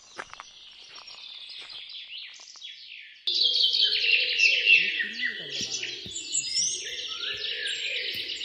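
Birds chirping and calling, with a few footsteps on the forest floor at first. About three seconds in, a much louder, dense chorus of many chirping birds starts abruptly and carries on.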